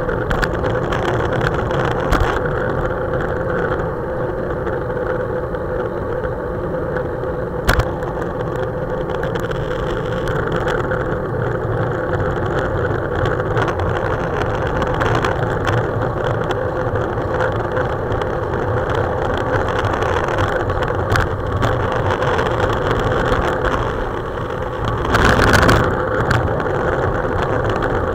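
Steady wind and road rumble picked up by a handlebar-mounted camera on a road bike riding fast in a group, with a faint steady hum. A sharp click about eight seconds in and a louder rush lasting about a second near the end.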